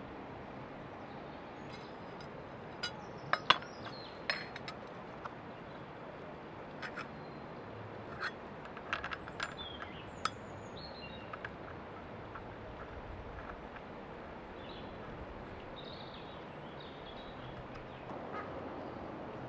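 Sharp metal clinks and taps of a steel brush cutter blade and its washer being handled and fitted onto the cutter's gearbox head: an irregular run of clicks over about ten seconds, the loudest about three and a half seconds in.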